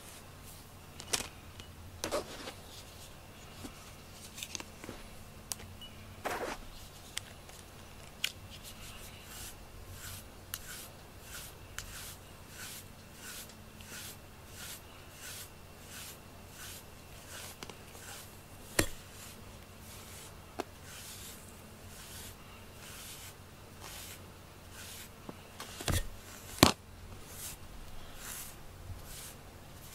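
A grooming brush drawn through a cat's coat in a steady run of short scratchy strokes, about one and a half a second, with a few sharper knocks, the loudest near the end.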